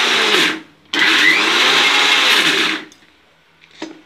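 Mixer grinder (mixie) motor run in short pulses, grinding roasted peanuts for peanut butter: it cuts out about half a second in, starts again a moment later, runs for about two seconds and stops. A single short knock follows near the end.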